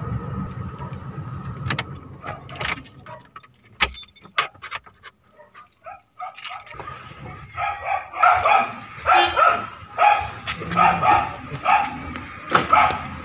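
Low drone of a car moving, heard from inside the cabin, fading out after about two seconds, followed by a few sharp clicks and rattles. From about halfway on, a dog barks over and over in quick bursts; this is the loudest sound.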